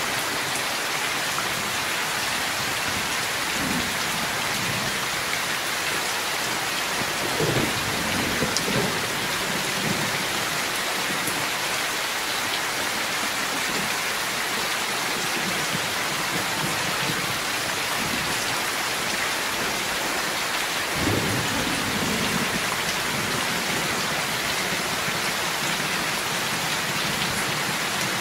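Heavy rain pouring steadily, with thunder rumbling low several times, the strongest about eight seconds in and again about twenty-one seconds in.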